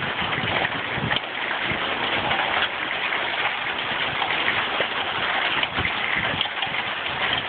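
Heavy rain from a thunderstorm pouring down: a steady, dense hiss with scattered low knocks.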